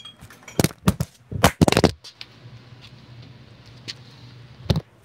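A phone camera and its tripod being knocked and handled as the camera tips over: a few sharp knocks and clattering hits, the loudest cluster about a second and a half in and one more knock near the end.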